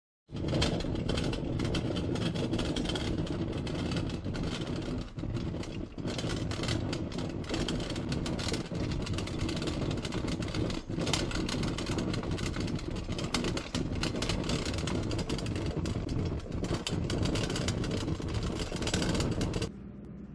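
Stainless stovetop coffee percolator perking on an electric range: a loud, steady rough rumble with irregular pops, cutting off suddenly near the end.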